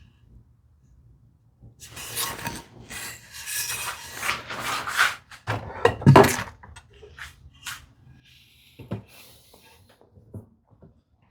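Hand tool smoothing wood: about four seconds of rubbing, scraping strokes, then a louder stroke with a thump about six seconds in, followed by a few light taps and clicks as the work is handled.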